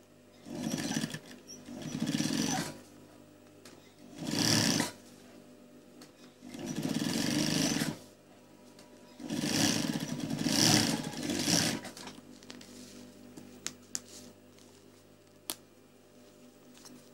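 Industrial sewing machine stitching fabric in five short runs over the first twelve seconds, each a second or so long, with a steady low hum between them. A few faint clicks follow near the end.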